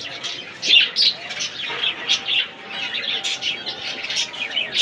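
Many small cage birds on a bird farm chirping together: a constant overlapping stream of short, high chirps.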